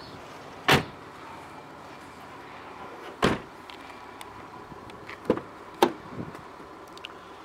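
Land Rover Discovery 4's doors and tailgate being handled: two heavy shutting thuds, about a second in and about three seconds in, then a few sharp latch clicks as a rear side door is opened.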